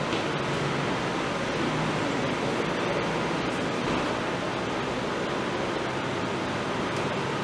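Steady, even rushing noise like a hiss, with no distinct events.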